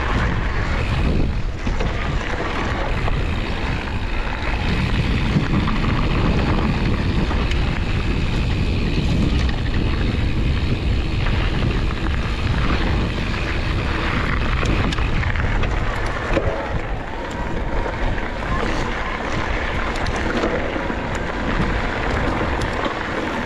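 Wind buffeting the microphone over the steady rumble of an e-mountain bike's tyres rolling on a dirt trail, with small knocks and rattles from the bike as it rides over the ground.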